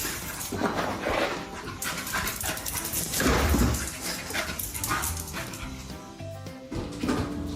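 A dog vocalizing in several irregular bursts over background music.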